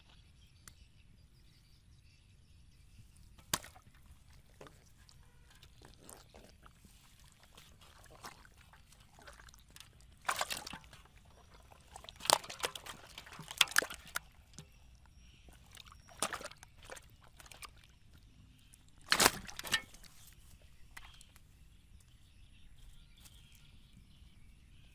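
Wet slaps and thumps of freshly caught fish flopping and being handled in a basin, in a few sudden bursts with quiet between them; the loudest come at about ten, twelve to fourteen and nineteen seconds in.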